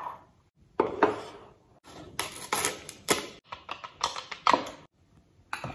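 A string of short clinks and knocks, about a dozen at irregular spacing, some ringing briefly: a ceramic bowl, a glass jar and a milk carton being handled and set down on a kitchen counter.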